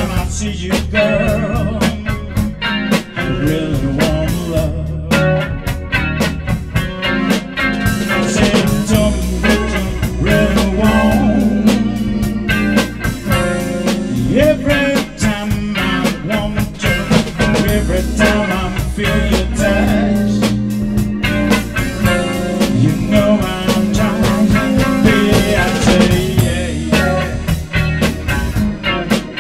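Live blues-rock band playing: electric guitar, keyboard and drum kit together, with a steady drum beat.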